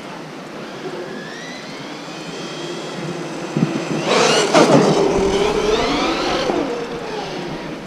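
Brushless electric motor of a 1/8-scale RC monster truck (Surpass Hobby 4076, 2200 kV) whining at full throttle on a 4S battery during a top-speed run: the whine rises in pitch, is loudest about four seconds in as the truck passes close by, then drops in pitch and fades as it moves away.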